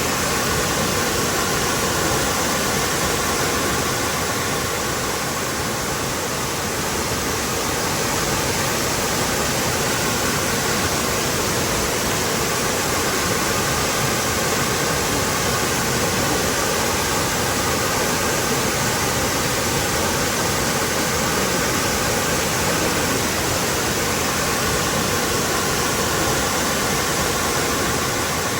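Waterfall cascading, a steady full rush of falling water with no breaks.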